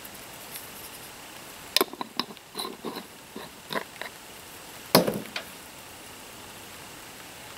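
A run of light clicks and taps, then one solid knock about five seconds in as a glass salt jar with a metal lid is set down on a wooden table.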